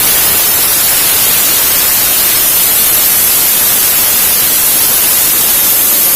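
Aerosol chain-cleaner spray hissing in one long, steady, loud blast as it is sprayed onto a motorcycle drive chain.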